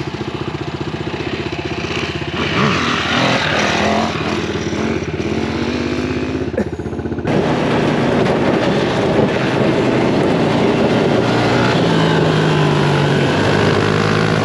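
A small vehicle engine running, its pitch rising and falling. The sound changes abruptly about seven seconds in, then carries on steadily.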